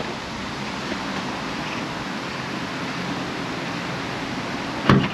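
Steady wind noise on the microphone. Near the end comes one sharp thunk: the Tesla Model 3's front trunk latch releasing.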